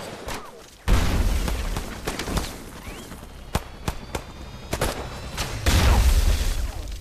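Battle sound effects of a war film: a heavy boom about a second in and another near the end, with scattered single gunshots cracking between them.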